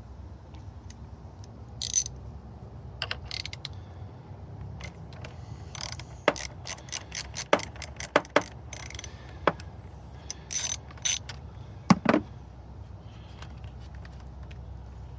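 Ratchet wrench clicking in short runs of strokes, with a few sharp metal clicks and knocks, while a car battery terminal is being loosened and disconnected.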